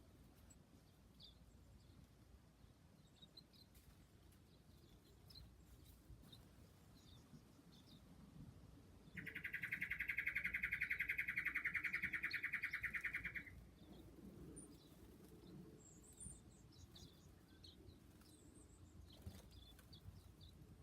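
Small birds chirping faintly on and off, and near the middle a loud, rapid trill lasting about four seconds.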